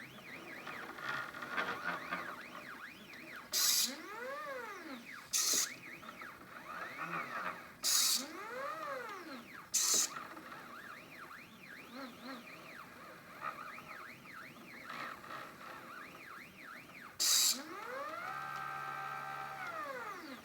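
Stepper motors of a homemade CNC plotter built from scanner and inkjet-printer parts, whining as they move, the pitch rising and falling as each move speeds up and slows down; a longer move near the end holds a steady pitch in the middle. Five short, loud noisy buzzes cut in between moves.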